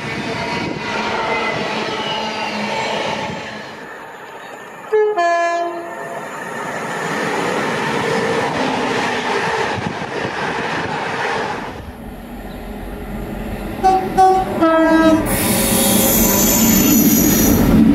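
Locomotives passing at speed through a station, sounding two-tone horns over the rumble and wheel noise. There is one high-then-low horn call about five seconds in, then later a quick run of short blasts followed by a longer note.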